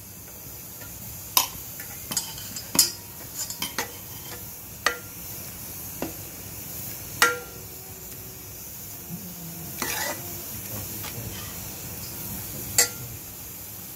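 Stainless-steel spoon stirring jaggery syrup into a thick pudding in a metal pot, clinking and scraping against the pot in irregular knocks. A few of the knocks ring briefly.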